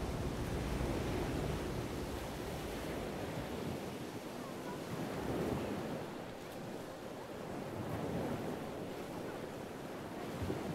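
Rushing of lake water and wind, with a low steady hum under it that drops away about three seconds in.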